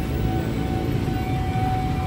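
City street traffic: a steady low rumble of motor vehicles, with a thin steady whine held throughout.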